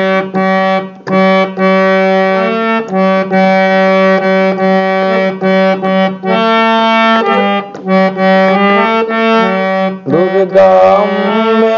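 Harmonium played solo: a melody in short phrases of sustained reed notes, with brief breaks between phrases. A voice briefly sings along near the end.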